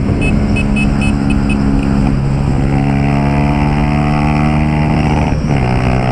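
Honda Titan 150's single-cylinder four-stroke engine running through a Pro Tork "Ronco Forte" aftermarket exhaust while riding. Its pitch changes with the throttle and dips briefly at gear changes about two and a half and five and a half seconds in. A quick series of short high beeps sounds during the first second and a half.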